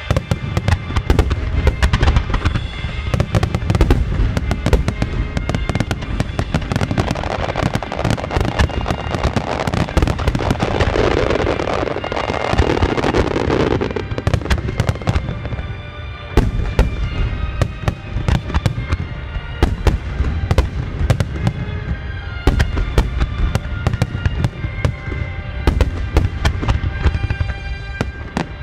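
Star mine fireworks: many aerial shells bursting in rapid succession, booms and crackles overlapping, thickest in the middle with a short lull a few seconds later. Music played for the pyromusical runs underneath.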